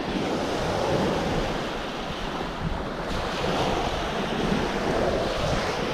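Ocean surf breaking and washing up the beach, rising and falling in slow swells, with wind buffeting the microphone.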